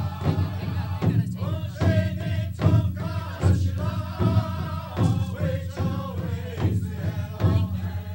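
Voices singing a chant together over a steady drum beat, a little more than one beat a second.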